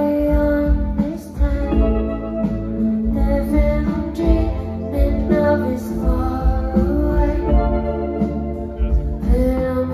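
A live band playing through a PA: sustained keyboard chords over a deep, pulsing bass line, with a woman singing.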